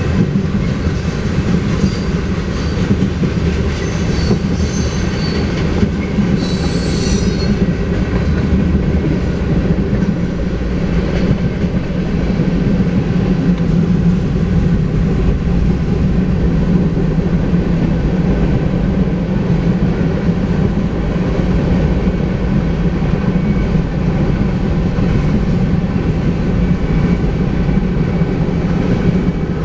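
Freight train covered hopper cars rolling steadily past: a continuous low rumble of steel wheels on rail. Brief high-pitched wheel squeals come in the first few seconds, the sharpest about seven seconds in.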